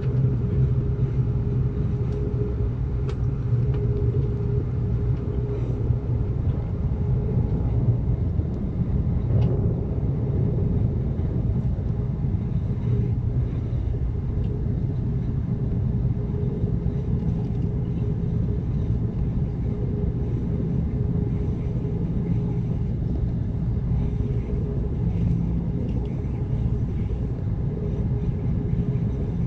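Steady rumble of an Amtrak Cascades passenger train running along the track, heard from inside the coach: wheels on rails with a constant low hum and a few faint ticks.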